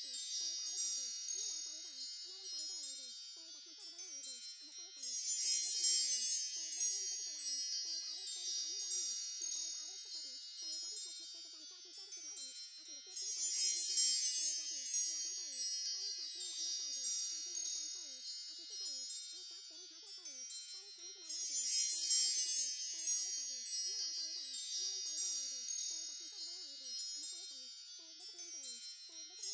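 Wind chimes tinkling continuously, a dense wash of high ringing tones that swells and fades about every eight seconds.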